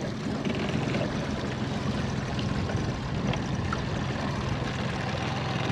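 Mercury outboard motor on a small aluminium boat running steadily, a constant engine hum under a hiss of water and wind.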